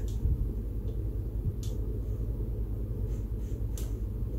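A few short clicks and taps from speaker wire and cables being handled, over a steady low hum.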